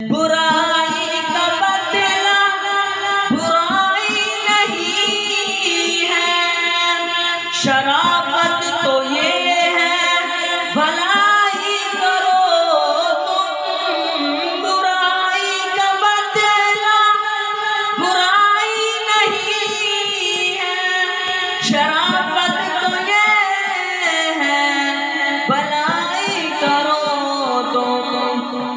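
Male voice singing a naat, long drawn-out gliding phrases with no clear words, sung into a handheld microphone. Under the voice runs a low percussive beat.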